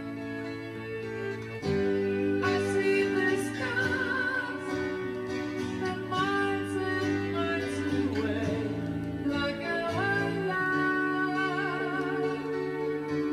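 Song played back from cassette on a freshly restored Tandberg TCD 440A deck: a woman singing with vibrato over guitar and sustained instrument notes, getting louder a couple of seconds in.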